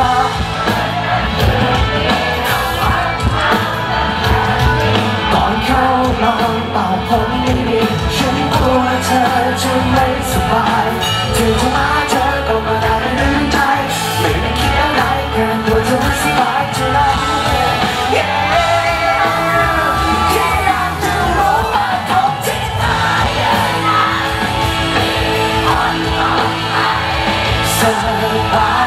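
Live band with electric guitar playing a pop-rock song while a male vocalist sings into a microphone, heard from within the audience.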